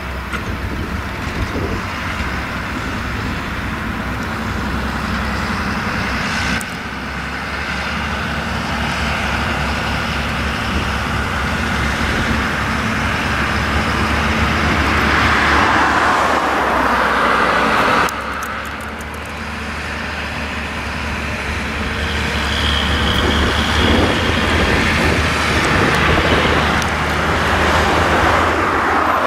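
Tractor engine running steadily while hauling a loaded trailer of big square hay bales, with the sound swelling louder around the middle and near the end. The sound jumps abruptly twice.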